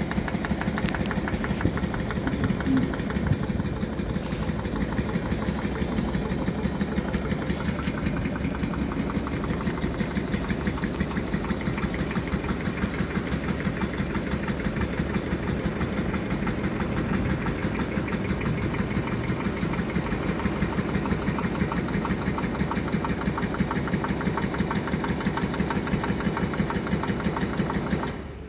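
Diesel engine of an Optare Solo SR bus running as the bus drives off, a steady, rapid clatter.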